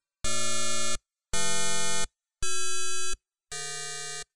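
Sonified amino acids: each amino acid's molecular vibrations are transposed into the audible range and played one after another as synthesized tones. Four steady chords of many pitches sound in turn, each under a second long with short silent gaps between them, and the fourth is quieter.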